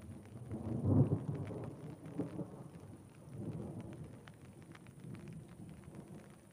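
Thunder rumbling, loudest about a second in, then rolling on in weaker swells and fading away. Raindrops tick throughout.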